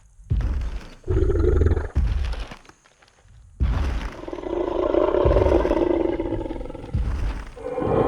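Sound-effect Tyrannosaurus rex: a few heavy footstep thuds in the first two seconds, then a long roar of about four seconds beginning about three and a half seconds in, with another stomp under it near the end.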